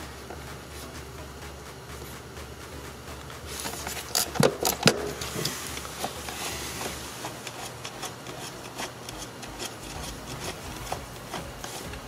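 Hands and a hand tool working the seat belt's lower anchor bolt and the trim around it: scattered clicks and rubbing. A few sharper clicks come about four to five seconds in. A low steady hum underneath stops about seven seconds in.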